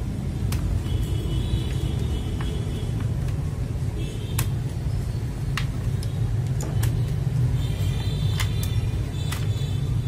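Steady low rumble with about seven sharp plastic clicks scattered through it, most in the second half, as mechanical keyboard switches and keycaps are pulled out and handled.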